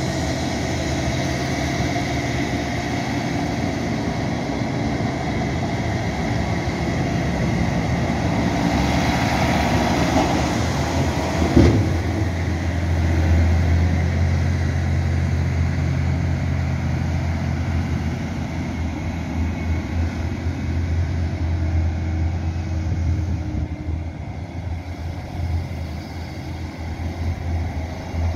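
John Deere 9520R tractor's diesel engine running steadily while pushing silage with its front blade. A single sharp knock comes at about twelve seconds. After the knock a deep low drone from the engine is stronger.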